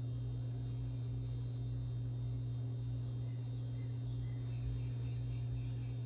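Hunter Castleton ceiling fan running with a steady low motor hum.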